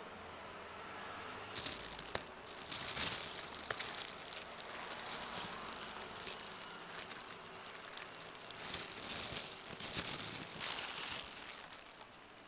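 Crinkling and rustling handling noise in irregular bursts, with a few sharp clicks, starting about one and a half seconds in.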